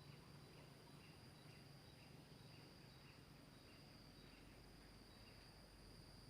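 Faint insects calling: a steady high-pitched drone with a softer chirp repeating about twice a second, the chirps stopping near the end.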